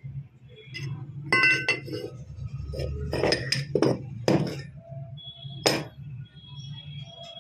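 Steel parts and tools clinking and knocking together as they are handled, several sharp metallic strikes with a short ring, the loudest about a second and a half, four seconds and almost six seconds in, over a low steady hum.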